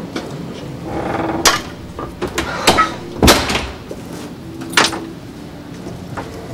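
A few sharp knocks and clicks, the loudest about three seconds in, from a wooden hallway door and its latch being handled.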